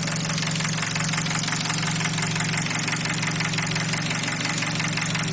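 Nissan QG18DE 1.8-litre four-cylinder engine idling warm at about 700 rpm, with a steady, fast knock and, on top of it, the ticking of the LPG gas injectors. The knock is the engine fault the owner is chasing.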